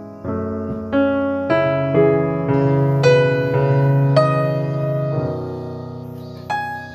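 Background piano music, with notes and chords struck about every half second and each left to fade.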